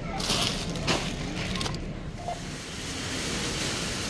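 Groceries being handled at a supermarket self-checkout, with a few sharp rustles and clatters and a short beep about two seconds in, then steady outdoor car-park noise with traffic.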